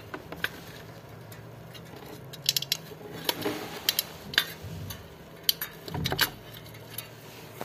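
Scattered small metallic clicks and clinks as the brake lever and its return spring are worked into place by hand on a washing machine's spin motor, with a short cluster of taps about six seconds in.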